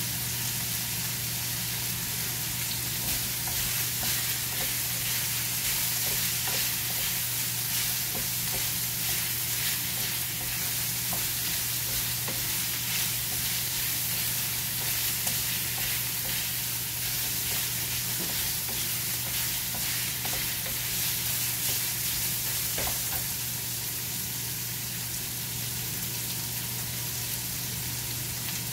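Sliced pork sizzling steadily as it fries in a nonstick frying pan, with scattered light ticks and scrapes as the pieces are turned. A steady low hum runs underneath.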